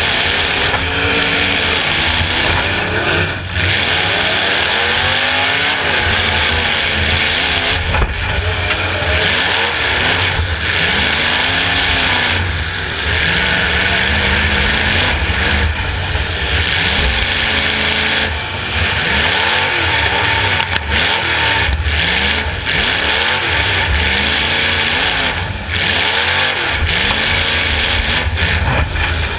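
Demolition derby car's engine, heard from a camera mounted on board, revving up and dropping back over and over as the car accelerates and backs off, with a few sharp knocks along the way.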